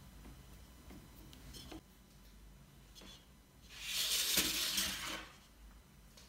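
A metal fork pricking tart dough in fluted metal tart tins, giving a few light clicks. About four seconds in comes a louder rushing noise lasting about a second and a half.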